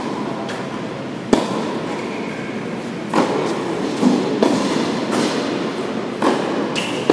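Tennis balls struck by rackets in a doubles rally on an indoor court: four sharp pops spaced one to two seconds apart, each with a short echo in the hall, over steady background noise.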